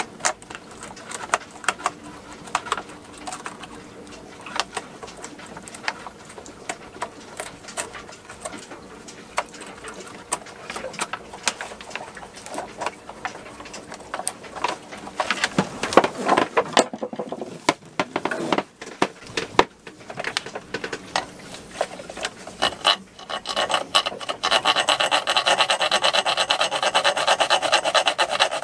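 Paper rustling and crinkling as a knife cuts a small hole through a sheet laid over an engine block. From about 24 seconds in comes a steady, louder rasping: a hand file stroking across the face of a snapped steel head bolt, filing it flat before it is centre-punched and drilled.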